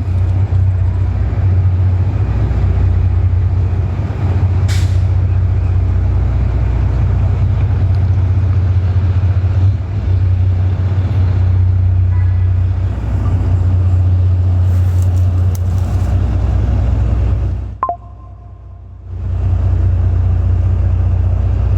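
Heavy crane truck's diesel engine running steadily with a deep, even hum. It cuts out suddenly for about a second near the end after a sharp click, then comes back.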